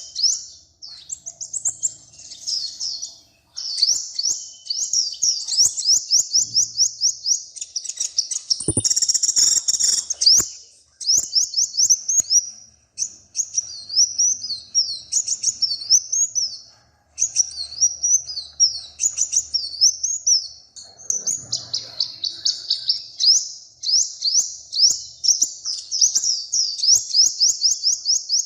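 A small songbird singing in fast series of repeated high, sweeping notes, phrase after phrase with short breaks. A brief burst of noise sounds about nine seconds in.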